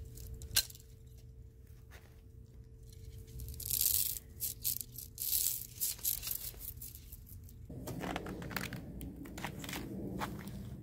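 Ice crunching and crackling: a sharp click just after the start, then a few seconds of irregular crunching, giving way to a softer rustle near the end.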